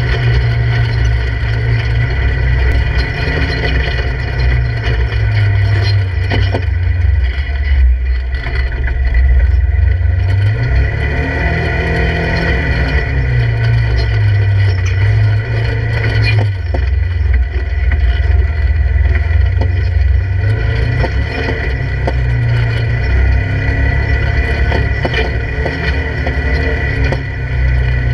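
Polaris RZR 1000 side-by-side's parallel-twin engine running at low speed while crawling over rocks, heard from inside the open cab. The engine pitch rises and falls once about halfway through, and a few short knocks come through.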